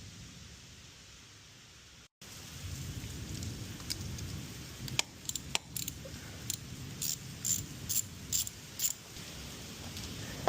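Steady rain from a storm, with a run of sharp metallic clicks and clinks starting about five seconds in: two hard clicks, then lighter clinks about two a second.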